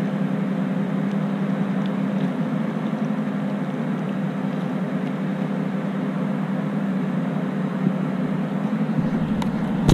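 A motor running steadily with an even low hum. Near the end a low rumble comes in under it.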